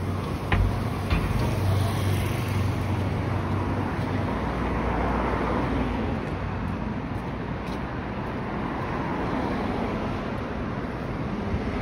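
Street traffic on a city avenue: the steady noise of cars and a motorcycle passing, with a vehicle's engine hum loudest in the first few seconds.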